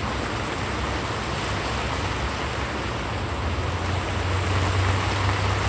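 Steady outdoor hiss and rumble, with a low engine-like drone that grows stronger about halfway through.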